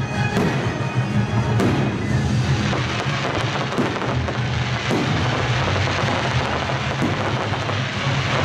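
Aerial firework shells bursting with several sharp bangs over loud orchestral film-score music that plays throughout.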